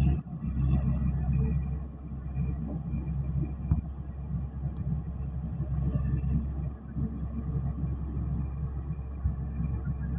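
Tractor engine running steadily as it churns a flooded rice paddy: a continuous low rumble.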